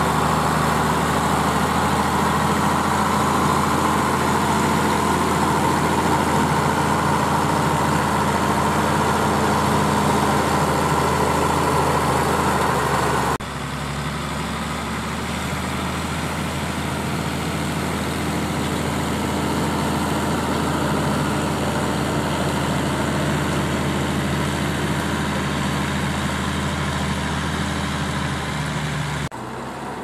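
Zetor Crystal 12145 tractor's six-cylinder turbo diesel running steadily under load while pulling a cultivator through a field. The level drops suddenly about 13 seconds in and again near the end as the shot changes.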